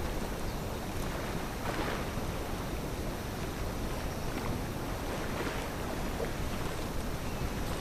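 Wind rumbling on the microphone over the steady wash of the sea.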